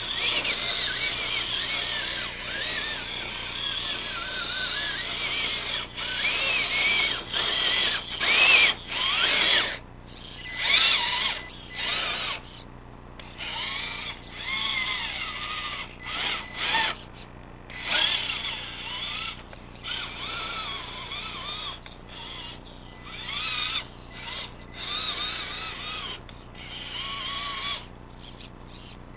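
Electric drive motor and geartrain of a Venom RC rock crawler whining in repeated short bursts as the throttle is worked on and off, the pitch rising and falling with motor speed.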